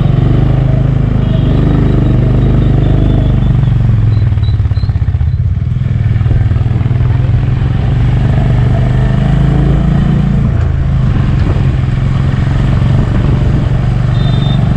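Honda H'ness CB350's single-cylinder engine running steadily under the rider, heard from on the bike. The engine note dips briefly about five seconds in and shifts again about ten seconds in.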